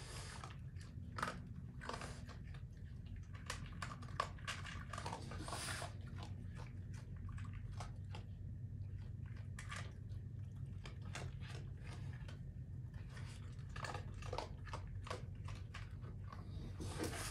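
Raccoons chewing and crunching dry kibble, a run of irregular crunches and crackles, over a steady low hum.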